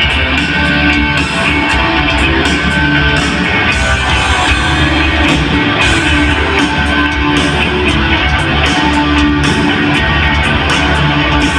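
Live heavy metal band playing in a large arena: electric guitars over bass and drums, loud and steady throughout.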